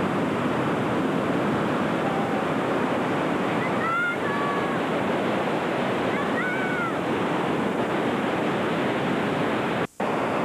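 Ocean surf breaking and washing up a sandy beach, a steady rushing noise. Two brief high calls sound faintly over it near the middle, and the sound cuts out for a moment near the end.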